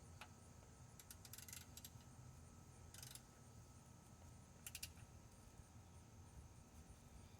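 Faint clicks of a socket ratchet tightening the oil drain plug: a quick run of clicks about a second in, a short burst near three seconds, and two more clicks near five seconds.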